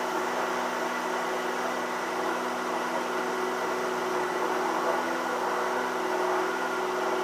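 Steady mechanical hum of a running engine or machine, with a few steady tones over an even rushing noise.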